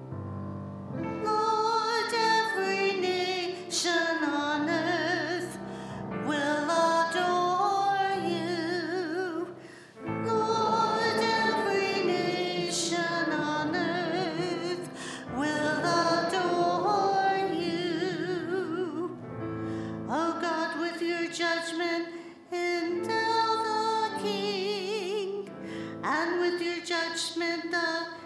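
A woman cantor singing slow phrases with wide vibrato, over piano accompaniment. The singing starts about a second in and pauses briefly between phrases.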